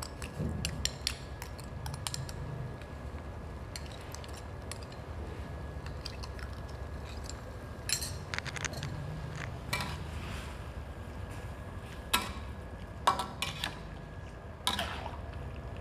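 Metal spoons and a ladle clinking and scraping against a steel wok as seasoning sauces are spooned into a boiling pork-and-vegetable broth and stirred, with scattered sharp clinks over a steady low rumble.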